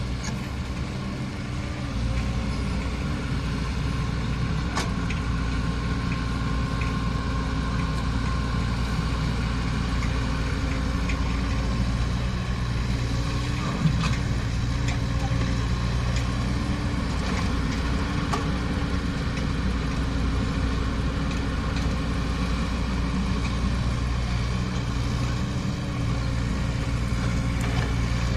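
Diesel engine of a Caterpillar 307E excavator running steadily at idle, a little louder from about two seconds in, with a sharp knock about halfway through.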